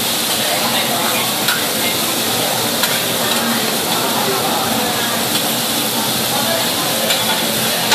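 Diced meat sizzling steadily on a steel teppanyaki griddle as a chef chops and turns it with two metal spatulas, with a few light clicks of the blades against the plate.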